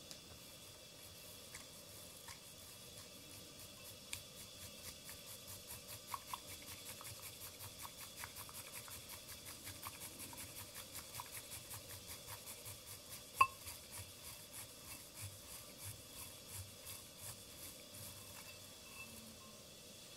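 Bamboo tea whisk brushing through matcha in a glazed Oribe-ware ceramic tea bowl: quick, faint, scratchy strokes at about three or four a second, starting a few seconds in and easing off near the end. One sharp click stands out about two-thirds of the way through.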